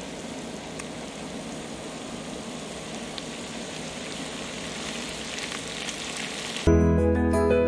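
Black chickpeas sizzling as they fry in a pan, a steady hiss with a few faint pops. Background music comes back in near the end.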